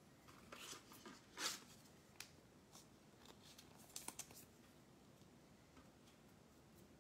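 Faint handling of trading cards: a few light taps and rustles as cards are picked up and laid on the table, the clearest about one and a half seconds in and a small cluster about four seconds in.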